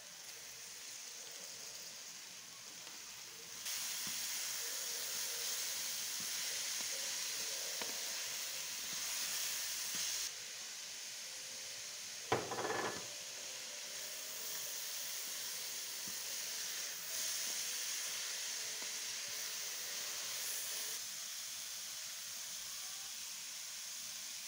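Grated carrots sizzling steadily as they fry in an aluminium karahi, with one short knock about halfway through.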